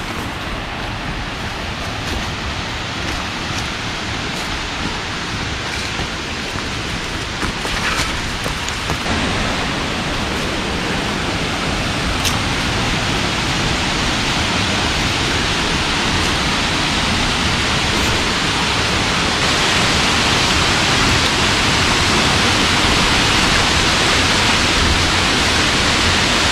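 Steady rush of water from Ravana Falls, a dense even hiss with no distinct events, growing gradually louder.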